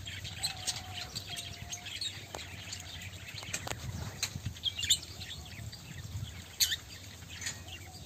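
Small parrots, parakeets and budgerigars, chirping: scattered short, sharp high calls, one louder call about two-thirds of the way in, and a soft held whistle-like note in the first two seconds.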